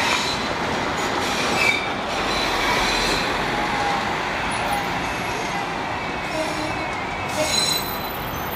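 Breda light-rail tram approaching slowly on street track, with faint high wheel squeal now and then, over the steady noise of road traffic passing close by.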